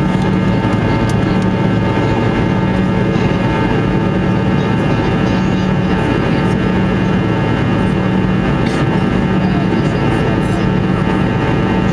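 Cabin noise of a Fokker 100's twin rear-mounted Rolls-Royce Tay turbofans running steadily: a dense engine noise with a whine of several steady tones. Under it is a low hum that swells and fades every couple of seconds.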